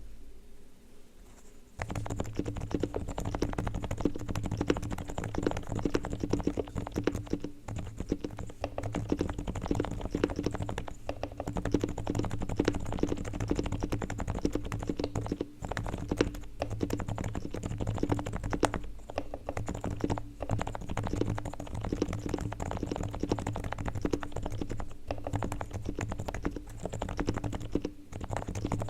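Realforce R3TL silent Topre electrostatic-capacitive keyboard with 45 g keys, typed on fast and continuously from about two seconds in, giving soft, dense key strokes.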